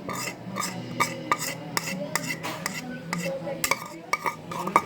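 A squishy mixture being stirred in a container, the stirring utensil knocking against the sides about twice a second in a steady rhythm.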